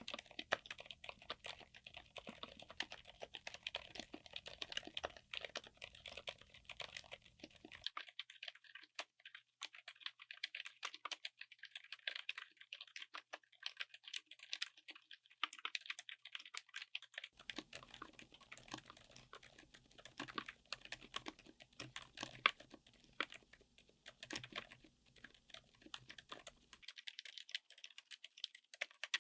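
Fast typing on a mechanical keyboard fitted with silent switches: a steady run of soft, damped keystrokes. The sound changes abruptly about 8 seconds in, again about 17 seconds in, and near the end, as one recording gives way to the next.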